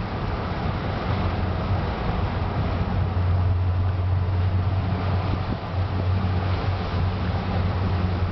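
Motorboat engine running steadily with a low drone, under a hiss of wind on the microphone and water rushing past the hull.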